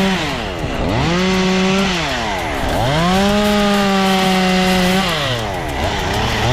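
Two-stroke chainsaw held at full throttle, dropping back toward idle and revving up again three times.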